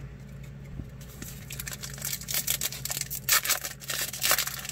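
A foil wrapper on a pack of Panini Donruss Optic trading cards being torn open and crinkled. It is a run of sharp crackling that builds from about two seconds in.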